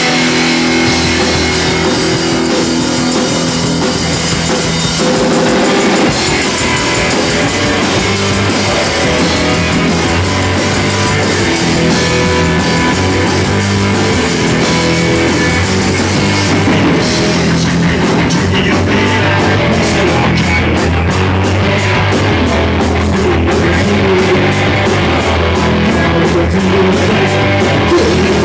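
Rock band playing loudly live, electric guitar over drums, with a steady driving beat coming in about two-thirds of the way through.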